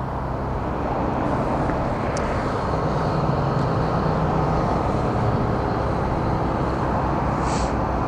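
Caterpillar C7 diesel engine of a 2007 Blue Bird All American bus idling steadily, a constant low hum and rumble.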